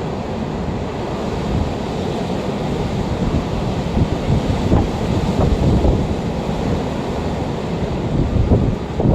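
Strong gusts of a severe windstorm, with heavy wind buffeting on the microphone: a low, gusting rush that swells about four seconds in.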